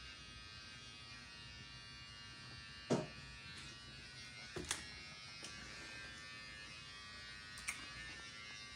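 A steady, high-pitched electrical buzz, with a few short knocks, the loudest about three seconds in.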